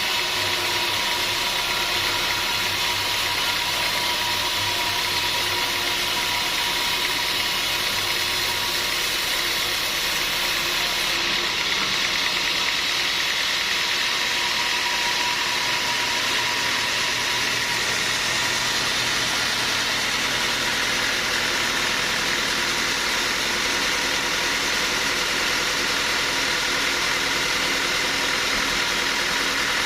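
Sawmill machinery running steadily, a constant mechanical drone with a steady hum, shifting slightly about ten seconds in.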